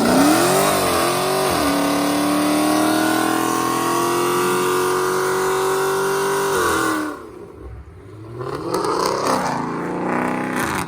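A muscle car accelerating hard: the engine revs climb, dip briefly at a shift about a second and a half in, then hold a long high-rpm pull for about five seconds before cutting off sharply around seven seconds in. Near the end the engine sound rises and falls once more, more briefly.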